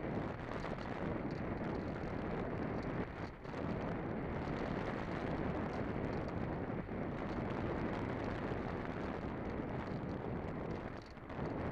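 Steady rushing wind noise on the microphone, with a brief lull about three seconds in and another near the end.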